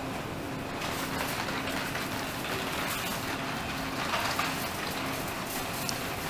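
Supermarket background noise: an even, steady hiss with a faint, broken low hum beneath it.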